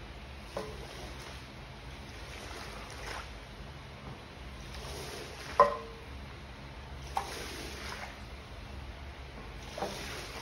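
Floor squeegee pushed in strokes across a flooded, soaking-wet area rug, sweeping the water off it with a wet swishing hiss that swells with each stroke. Four sharp knocks as the blade meets the rug, the loudest a little past halfway.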